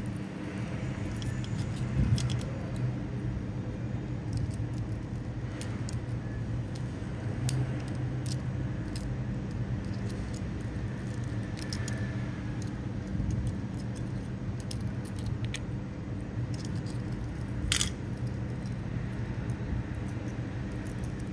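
Small metallic clicks and clinks of a split ring and treble hook being worked with split-ring pliers onto a bottle-cap lure, with one sharper click late on, over a steady low hum.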